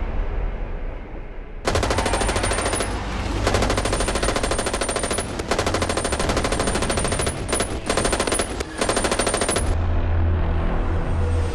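Rapid automatic gunfire in long bursts, starting about a second and a half in and stopping about ten seconds in, with short breaks between bursts. A low rumble follows near the end.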